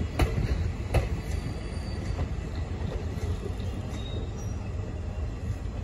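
Passenger train coaches rolling past close by: a steady low rumble of wheels on rail, with sharp clicks as the wheels cross rail joints. The loudest clicks come just after the start and about a second in, with fainter ones after.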